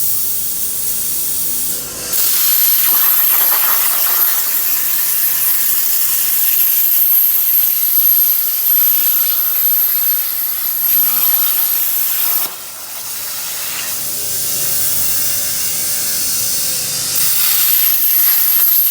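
CNC cutting machine cutting decorative patterns out of a steel sheet: a steady, loud hiss with a thin high whine over it, which drops away briefly twice, near the start and about two-thirds of the way through.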